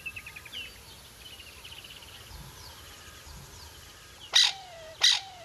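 Crested francolin calling: a fast trill of high notes, then two loud, harsh calls a bit under a second apart near the end, each dropping in pitch at its tail, more like a shout than a song.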